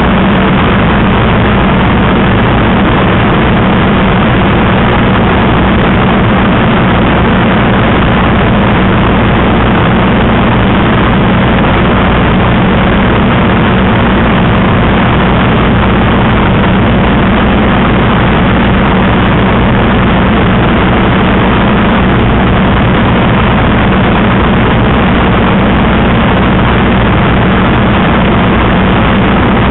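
Spitfire's Rolls-Royce Merlin V12 engine running steadily in cruise, a loud constant drone with rushing airflow, heard from inside the cockpit.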